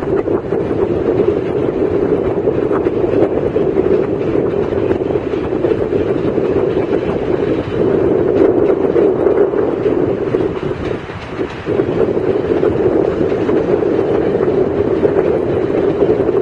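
Passenger train running on the rails: a steady noise that dips briefly about eleven seconds in.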